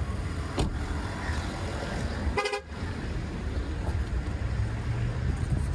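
A single short car-horn toot about two and a half seconds in, over a steady low rumble.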